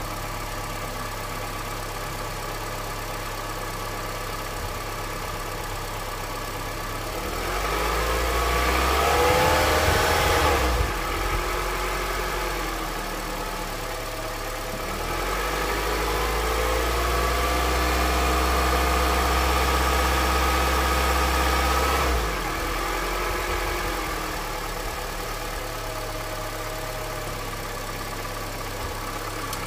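Cold Honda CR-V engine idling, from a 200,000 km engine whose owner is listening for a knock. Twice the engine grows louder with a deeper hum and shifting pitch: briefly about seven seconds in, and again for several seconds from about fifteen seconds in. It then settles back to a steady idle.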